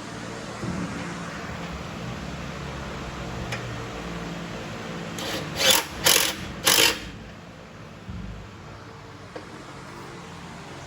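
An impact wrench fired in three short bursts in quick succession, about six seconds in, running a bolt in. A steady low shop hum runs underneath.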